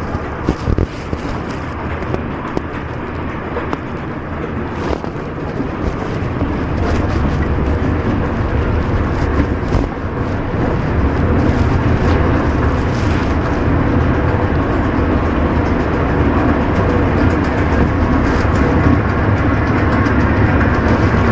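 Escalator running under a rider: a steady low mechanical rumble that grows louder about halfway through as the ride goes on, with a few scattered clicks.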